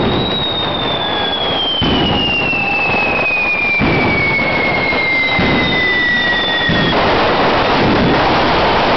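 Fireworks spraying sparks at close range: a loud continuous hiss and crackle with a few sharper bangs, and a long high whistle that slides slowly down in pitch over about seven seconds before stopping.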